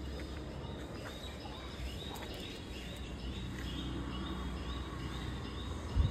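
Outdoor ambience with a steady low rumble and a bird calling in short repeated chirps, about two to three a second, starting about two seconds in. A single low thump just before the end is the loudest sound.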